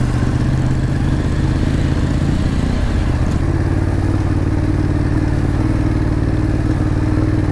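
Ducati Monster 821's L-twin engine running steadily as the bike is ridden over a rough, stony dirt road; the engine note shifts briefly about three seconds in.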